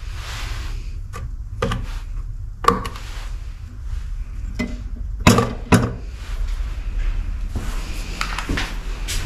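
Irregular footsteps and knocks on a hard, debris-strewn floor, several sharp ones standing out near three, five and six seconds in, over a steady low rumble.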